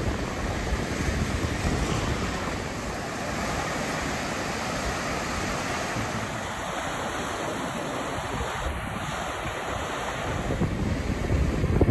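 Ocean surf breaking and washing in as a steady rush, with wind rumbling on the microphone, heavier near the end.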